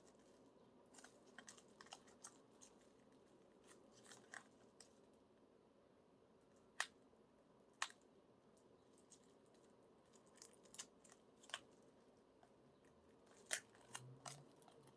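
Near silence broken by scattered faint clicks and crackles of hands working at a shrink-wrapped CD album's packaging, with two sharper clicks a second apart midway through.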